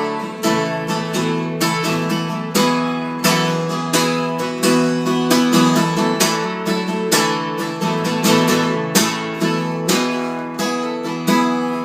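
Acoustic guitar strummed in a steady rhythm, chords ringing between the strokes, as an instrumental break with no singing.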